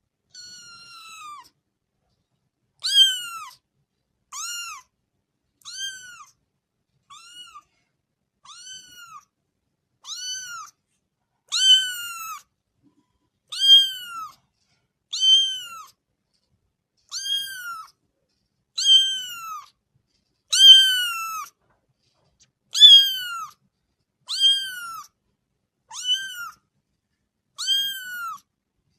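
Kitten mewing over and over: high-pitched meows that rise and fall in pitch, each under a second, about one every one and a half to two seconds.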